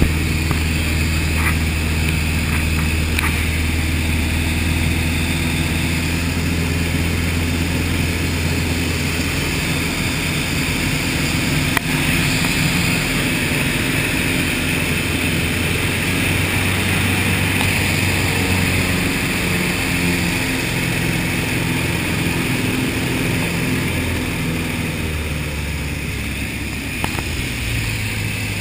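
Cockpit sound of a light aerobatic plane in flight: the propeller engine drones steadily under a constant rush of airflow. The engine note drops about ten seconds in and rises again near the end.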